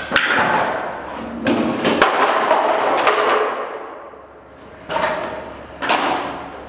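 Panels of a laminated flat-pack cabinet being wrenched apart and thrown down onto a concrete floor, clattering and knocking. There are about six sharp crashes, each with a rattling tail, the loudest near the start and around five and six seconds in.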